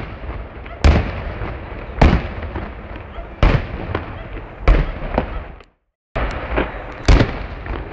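Aerial firework shells bursting in sequence: a sharp bang about every second and a quarter, with crackling and rumble between the reports. The sound cuts out completely for a moment just before the last two bangs.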